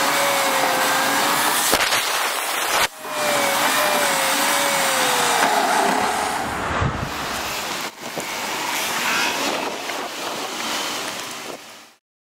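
Car driving, heard from inside: steady road and wind noise with an engine note drifting up and down in pitch. The sound breaks off briefly at a few cuts and stops near the end.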